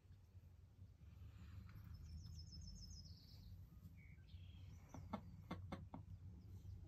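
Faint high bird chirps: a quick trill about two seconds in, then a couple of short peeps. A few soft taps follow near the end, over a low steady hum.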